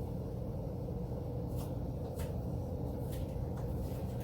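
Steady low room hum with a few faint soft clicks.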